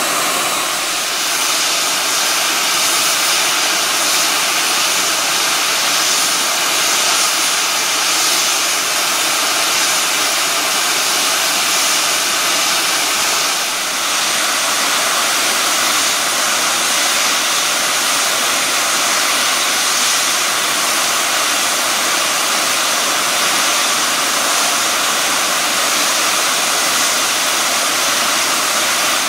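Loud, steady hiss of steam from a standing steam locomotive, No. 53808, a Somerset & Dorset 7F 2-8-0, with a brief dip about halfway through.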